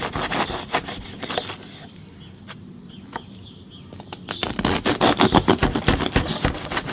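A sharp knife sawing through the crisp crust of a ciabatta loaf, with rapid crackling crunches. The crunching dies down about two seconds in and starts again about four and a half seconds in as the blade cuts in once more.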